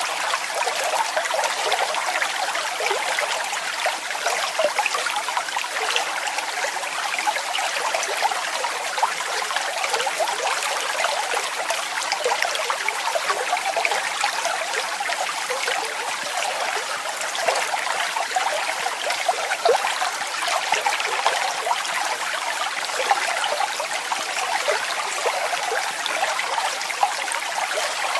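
Water cascading and splashing continuously: a steady rushing hiss full of small splashes, with no deep rumble.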